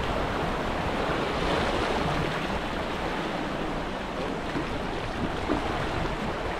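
Small waves washing and foaming over the granite boulders of a jetty, a steady surge of surf with no single splash standing out.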